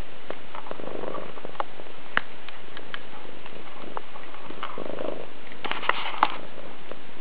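Domestic cat purring close to the microphone, with a quick cluster of sharp clicks about six seconds in.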